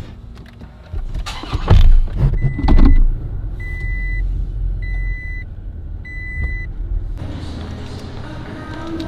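Two loud thumps, then a car's warning chime beeps four times, evenly spaced about a second apart. Near the end the sound cuts abruptly to a different steady background noise.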